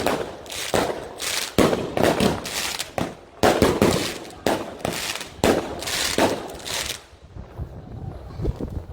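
Fireworks going off in a steady series of loud bangs, roughly one a second, each trailing off in a short rumble; the bursts stop about seven seconds in.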